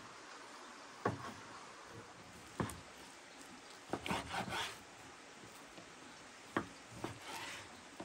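Chef's knife cutting raw beef into chunks on a wooden cutting board: five sharp knocks of the blade hitting the board, with longer scraping strokes as the knife draws through the meat twice between them.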